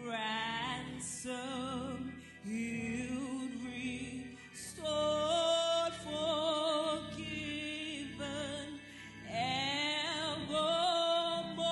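A woman's solo voice singing a slow worship song, holding notes with a wide vibrato, over steady sustained backing chords.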